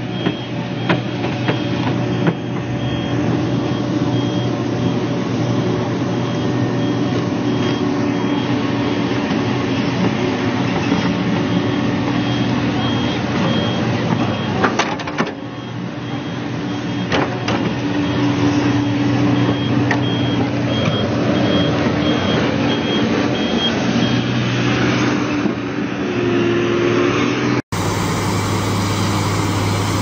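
New Holland crawler excavator's diesel engine running under load as the machine tracks over a steep dirt bank. A travel alarm beeps steadily and now and then the tracks clank. Near the end the sound cuts abruptly to another steady heavy-equipment engine.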